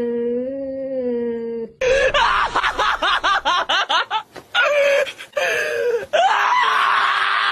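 A cat's drawn-out, wavering yowl at another cat during a standoff, cut off after about two seconds. Then a dog held down for a vet exam screams: rapid warbling yelps, then from about six seconds in one loud, unbroken scream of distress.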